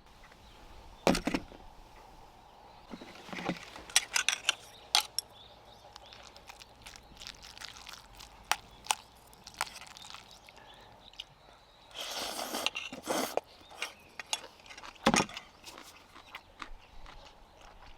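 Scattered knocks, clicks and clinks of objects being handled, with a short rustling noise about twelve seconds in.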